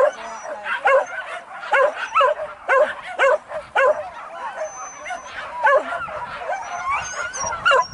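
Hunting dogs yelping and baying in a string of high, excited cries, about one a second, with several voices overlapping near the end.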